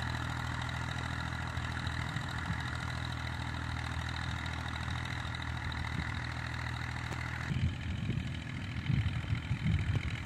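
Farm tractor engine running steadily as it drags a land-leveling blade across loose soil. About seven seconds in the sound changes abruptly: the engine becomes faint and distant, and wind rumbles and gusts on the microphone.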